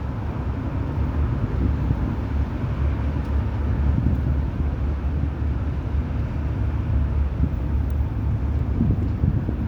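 Wind buffeting the microphone outdoors: a steady low rumble that rises and falls slightly.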